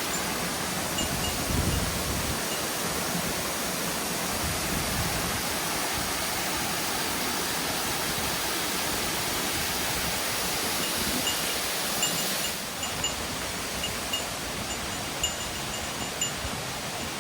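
Steady rushing of water in a mountain stream and waterfall, an even hiss with no lull, with faint short high pips now and then.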